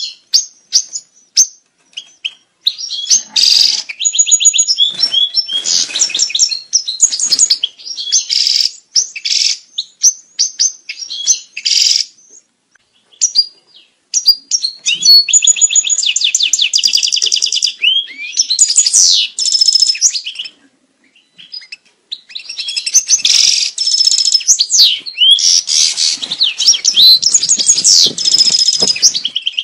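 European goldfinch courtship song: quick liquid twitters and rapid trills, opening with a few separate chirps and then pouring out in long bursts that break off briefly twice.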